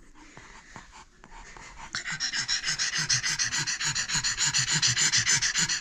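Pug panting fast and evenly, open-mouthed with its tongue out, getting louder about two seconds in: the dog is out of breath after exertion.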